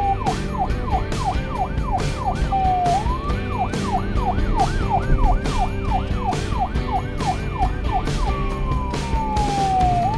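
Emergency-vehicle siren yelping in fast rising-and-falling sweeps, about three a second, broken by slow falling wails around three seconds in and near the end. A music track with a steady beat plays underneath.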